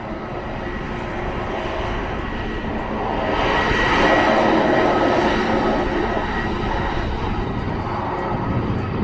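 Jet engines of an Airbus A320 airliner running as it taxis, a steady rushing noise with a thin high whine, swelling to its loudest about four seconds in and then holding.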